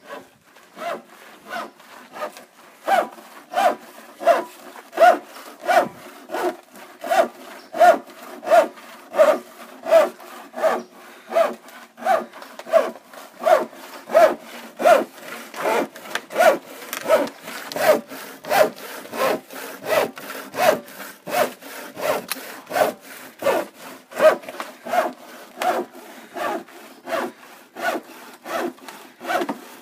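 Handsaw cutting through a black corrugated plastic septic tank riser, in steady back-and-forth strokes at about two a second, starting about a second in.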